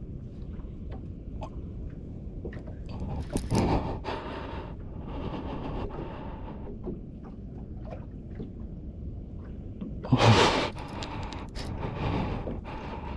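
Wind rumble and water noise around a small open boat at sea, with two louder, short noisy bursts: one about three and a half seconds in and one about ten seconds in.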